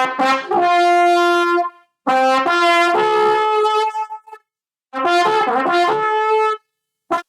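Brass instrument being played in three short phrases of a few held notes each, with brief pauses between them.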